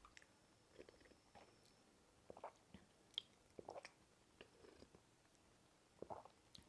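Faint chewing and mouth sounds of a person eating a meal: soft, wet smacks and small clicks coming irregularly, a few a second at the busiest.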